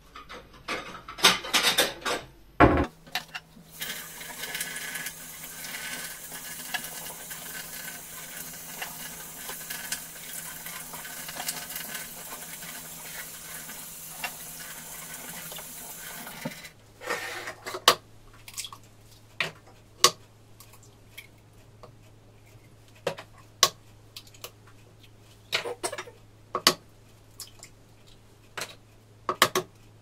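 Handling clatter at a wall cupboard, then a kitchen tap running steadily for about thirteen seconds and shut off suddenly. After that, a string of separate sharp taps and knocks as eggs are cracked on the rim of a mixing bowl.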